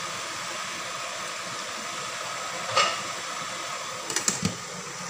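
Steady hiss of water boiling in the steamer pot beneath the tray of foil-wrapped rolls. A sharp clink comes a little under three seconds in, then a few clinks and a knock about four seconds in as the glass lid is set on the steamer.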